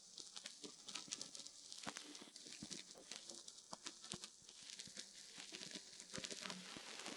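Surface noise of a 1922 phonograph record: a steady faint hiss with frequent, irregular crackles and pops.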